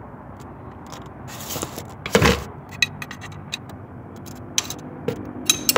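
Metal clinks and scraping of a 17 mm ring spanner working the oil drain plug loose on a Yamaha YBR motorcycle engine, with a louder knock about two seconds in and a run of clicks near the end.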